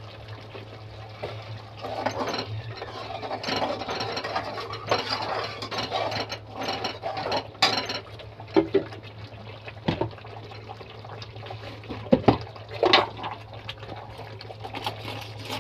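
A metal spoon stirring and scraping a bubbling masala gravy in a steel kadhai, with several sharp clinks of the spoon against the pan in the second half, over a steady low hum.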